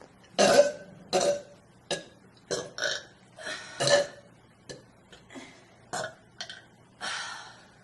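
A person burping over and over, about a dozen short burps in quick succession, the loudest about half a second in; small, teeny burps after drinking soda.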